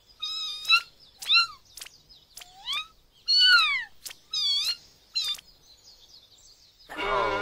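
Kitten meowing: about seven short, high-pitched meows, some rising and some falling, the loudest about three and a half seconds in. Music comes in near the end.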